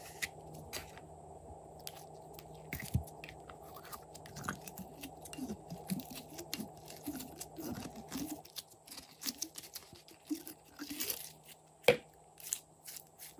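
Thick blue slime being squeezed out of a plastic squeeze container and kneaded by hand: sticky clicks, crackles and short squelches of trapped air, with one sharp click near the end.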